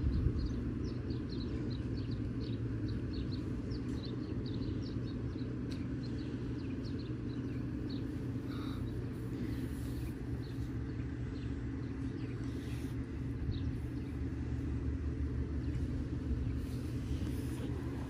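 Steady low rumble and hum of an idling engine, even in level throughout.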